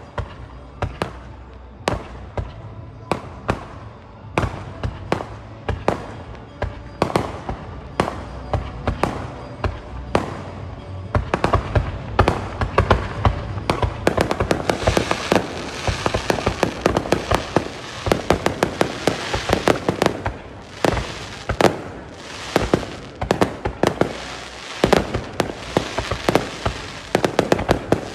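Aerial fireworks display: shells launching and bursting in sharp bangs. The bangs are spaced about a second apart at first, then from about eleven seconds in they become a dense barrage of overlapping bangs.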